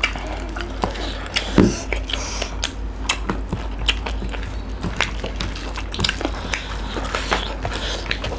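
Close-up eating sounds: a person chewing and biting food, with many short irregular wet clicks and crunches and one louder thud about one and a half seconds in, over a steady low hum.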